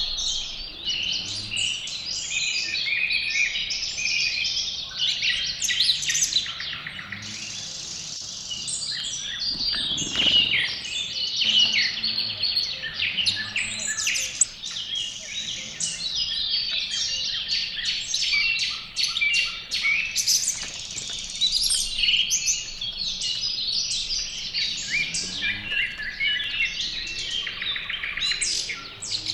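Songbirds singing and chirping at once in a dense, continuous chorus of overlapping calls and trills. A brief low rumble comes through about ten seconds in.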